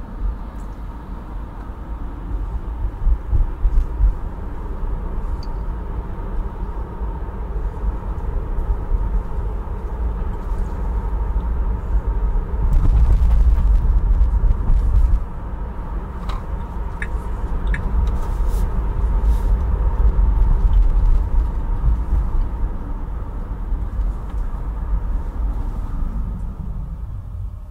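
Car driving through city streets: a steady low rumble of tyres and engine, swelling louder for a couple of seconds about halfway through and easing off near the end.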